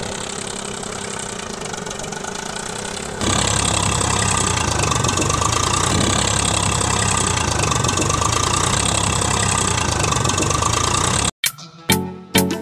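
Tractor engine running steadily, then louder and deeper from about three seconds in, as if pulling away; it cuts off abruptly near the end.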